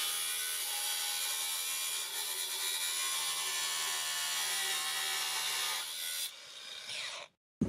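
Angle grinder cutting into rusted sheet steel of a van's front cross member: a steady, high, hissing whine that stops about six seconds in.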